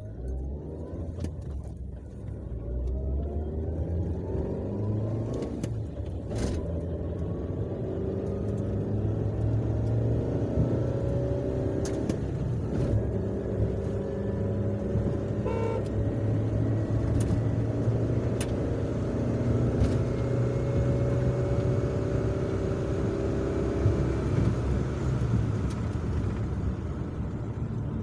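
Maruti Suzuki Wagon R's small petrol engine, heard from inside the cabin, accelerating hard from a standstill: its pitch climbs through each gear and drops back at each upshift, over growing road and tyre noise.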